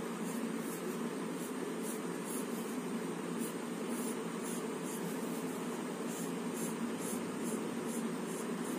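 Pencil lead scratching on paper in short, repeated strokes as lines are sketched, over a steady background hiss.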